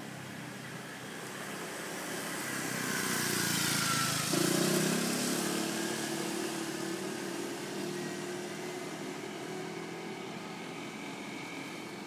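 Motor scooter passing close by and riding away. Its noise builds to a peak about four seconds in, then a steady engine note carries on and slowly fades.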